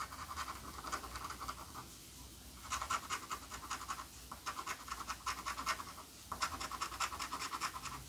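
A coin scratching the coating off a paper scratch-off lottery ticket in quick back-and-forth strokes. The scratching comes in several runs, with short pauses about two seconds in and again a little after six seconds.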